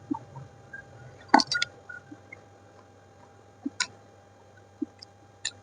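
Close-miked eating sounds: a handful of sharp, wet mouth clicks and short crunches while chewing, the loudest a quick group of three about a second and a half in.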